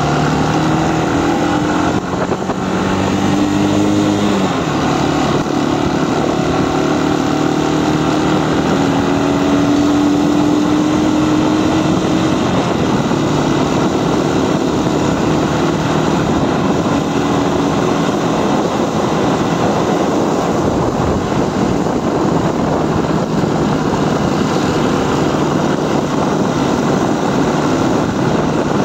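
Motorcycle engine running under way with heavy wind rush on the microphone. The engine note shifts in pitch over the first few seconds, then sinks under the wind noise after about twelve seconds.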